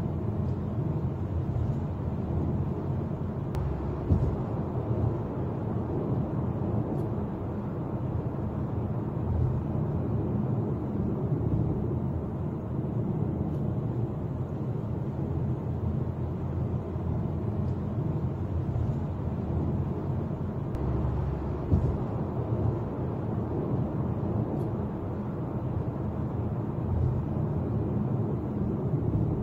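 Steady road and engine noise of a moving car, heard from inside the cabin through a dash cam's microphone, with a brief thump a few seconds in and another about two-thirds of the way through.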